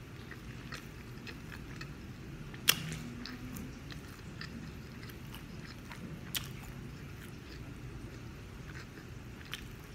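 A person chewing food close to the microphone, with scattered wet mouth clicks and smacks; the sharpest comes about three seconds in, another near the middle.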